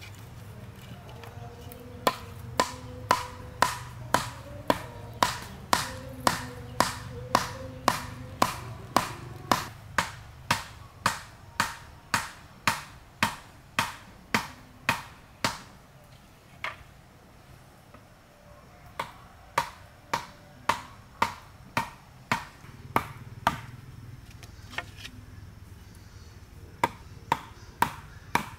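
Hammer blows driving split bamboo stakes into the soil, about two sharp strikes a second, each with a brief ring. The blows come in long runs broken by short pauses, one a little past halfway and one near the end.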